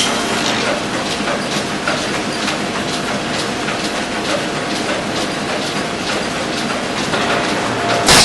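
Belt-driven bobbin mill lathes running: a steady mechanical clatter with many quick, irregular clicks, and a sharper knock near the end.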